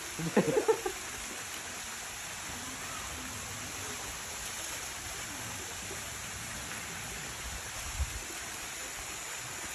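Small waterfall splashing steadily into a rock pool. A brief voice cuts in about half a second in, and there is a short low thump near the end.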